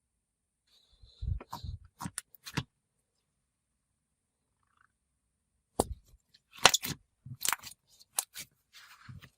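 Chewy mochi-texture slime being squished and poked by hand, giving sticky clicks and pops in two bursts: one about a second in and a longer one from about six seconds in.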